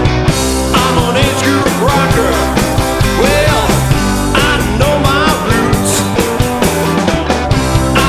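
Rock band music in an instrumental stretch with no vocals: a steady beat under a lead line that glides up and down in pitch.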